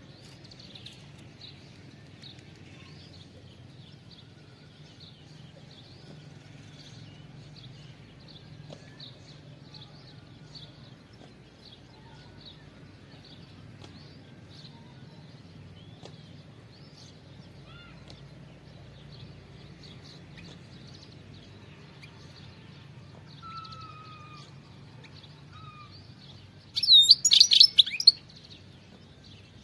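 European goldfinch twittering with faint, high, repeated chirps and a few short sliding notes, then a sudden loud burst of rapid calls near the end.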